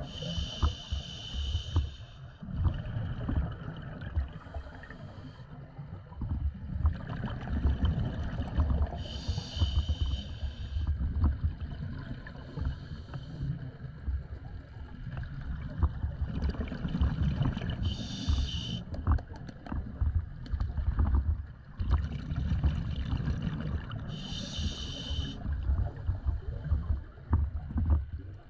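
Scuba breathing heard underwater: four hissing inhalations through the regulator's demand valve, spaced several seconds apart, with the low crackling bubble of exhaled air between them.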